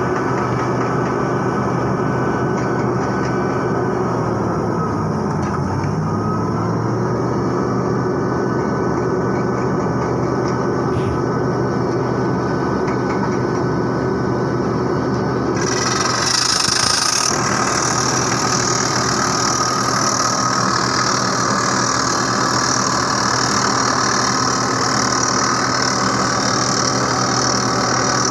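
Crawler rock drill rig running steadily while drilling into rock. About halfway through, a loud higher hiss joins in as compressed air blows rock dust out of the drill hole.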